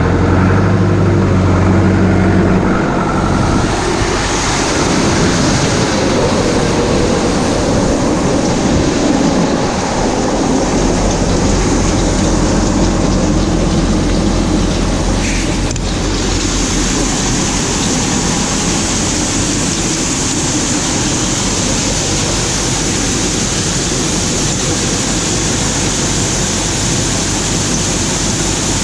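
John Deere combine running steadily while harvesting soybeans: a loud, even machine noise over a low engine drone. A higher hiss joins it about halfway through.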